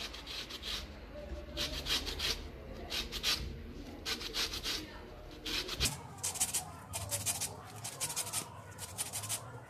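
Orange peel rasped against a small flat metal hand grater, zesting the orange in short runs of scraping strokes that come faster in the second half.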